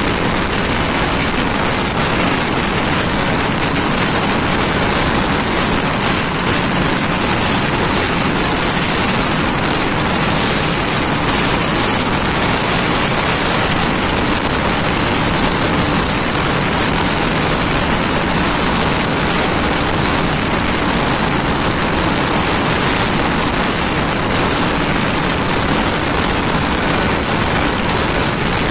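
Honda Bros single-cylinder motorcycle ridden at about 115–120 km/h: a loud, steady rush of wind over the microphone mixed with engine noise, holding even throughout.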